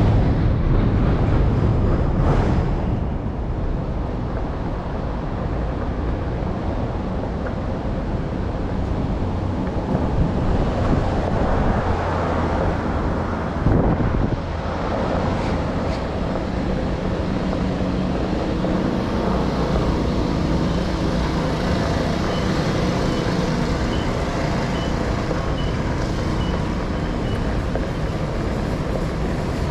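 Steady street and road noise, a low rumble of passing traffic, with a short sharp knock about halfway through.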